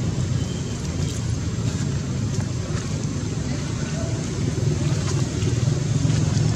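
Steady low background rumble, like a distant motor, swelling slightly near the end.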